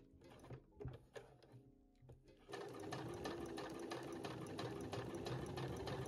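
Domestic sewing machine starting up about two and a half seconds in, after a few faint handling clicks, then stitching steadily with rapid, even needle strokes.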